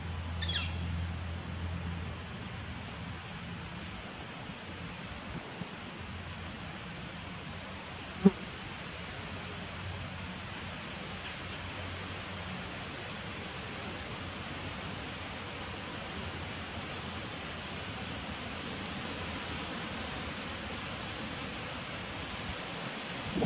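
Honeybees buzzing at the entrance of a nucleus hive, a low hum that swells and fades, under a steady high-pitched insect trill. One sharp tap about eight seconds in.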